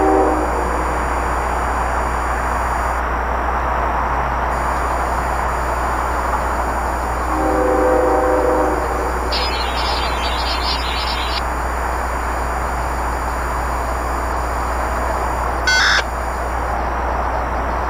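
Diesel locomotive's multi-chime air horn sounding, a chord fading out just after the start and one blast of about a second near the middle, over the steady rumble of a train passing. A brief sharp clank is heard near the end.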